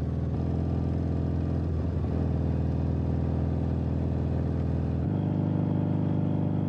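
Vintage BMW boxer-twin motorcycle engine running steadily under way. Its note wavers briefly about two seconds in and shifts abruptly to a different steady note about five seconds in.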